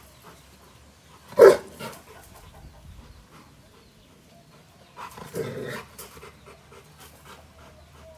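Rottweiler giving one short, deep, loud bark about a second and a half in, with a weaker one just after. A longer, quieter sound follows about five seconds in.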